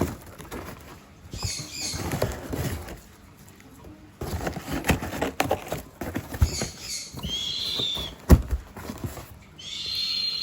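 Hands untying rope and working open a parcel: rustling and scraping with scattered knocks, a sharp knock about eight seconds in, and short high squeaks near the end.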